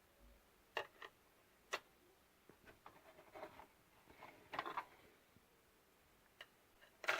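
Faint, irregular clicks and light knocks, about eight of them spread over several seconds, the last one the loudest near the end; no steady beep tone is heard.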